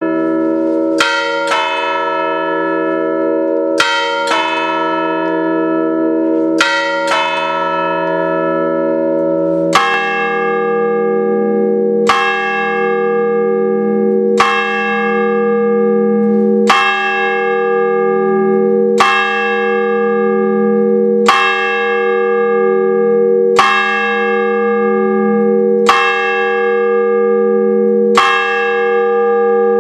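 The swinging bronze bells of a four-bell church peal, three baroque bells cast in 1788 and a small one from 1988, ringing together with overlapping tones. Strokes first come in pairs; about ten seconds in, a deeper bell with a strong hum joins and the strokes fall evenly, about one every two seconds.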